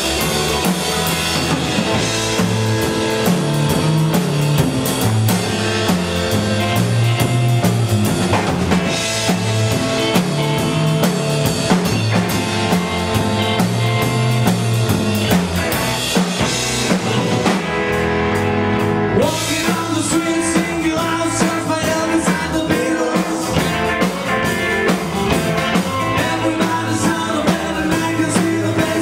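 Power-pop band playing live with electric guitars, bass guitar and drum kit. About eighteen seconds in, the cymbals drop out for a moment before the full band comes back in.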